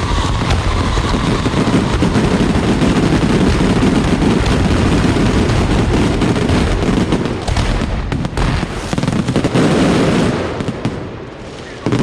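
Fireworks going off in a dense, continuous barrage of overlapping bangs and crackles, dying down near the end.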